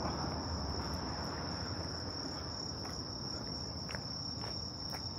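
Night insects trilling in one steady, high, unbroken tone, over a low even background noise with a few faint ticks.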